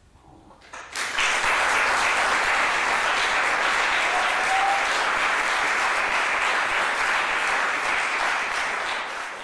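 Audience applauding. The clapping starts suddenly about a second in, holds steady and thick, and fades away near the end.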